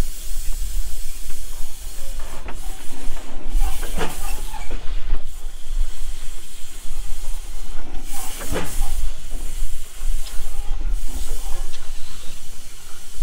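Steam traction engine hissing steadily as steam escapes. Two short, louder sounds come about 4 and 8.5 seconds in.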